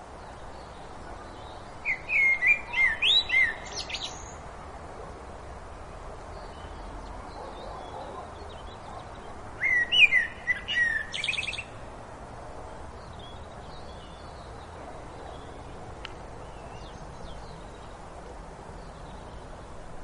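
Songbird singing in woodland: two loud song phrases about eight seconds apart, each a quick run of slurred notes ending in a higher rattle, with fainter birdsong further off between them over a steady background hush.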